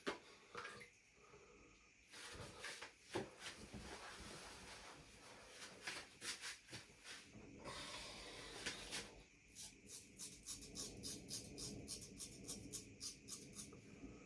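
Harlex straight razor scraping through stubble in short strokes: irregular scratches at first, then a quick run of about four or five short scrapes a second in the second half.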